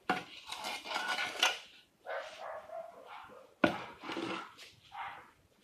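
Metal garden trowel scraping and scooping soil into a plastic pot, in about three scraping strokes, with a sharp knock of metal on the pot about three and a half seconds in.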